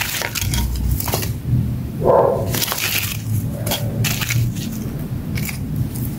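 Styrofoam (isopor) being broken up and crushed by hand as kindling for a fire: irregular crunching and snapping, with a brief squeak about two seconds in.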